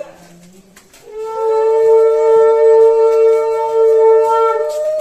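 Conch shell (shankha) blown in one long steady blast of about four seconds, starting about a second in, the traditional auspicious sound of a Bengali Hindu wedding rite. The tail end of an earlier blast is heard at the very start.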